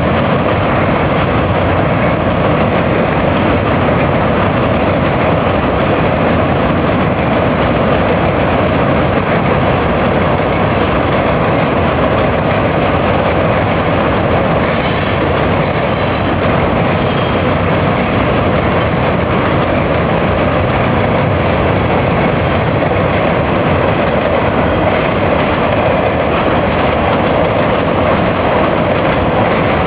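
Train crossing the drawbridge, a steady, even rumble with no distinct clanks or horn.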